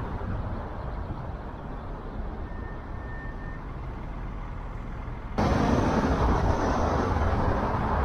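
Steady road and wind noise of a car driving in city traffic, picked up by an action camera mounted on the car. The noise jumps abruptly louder about five seconds in.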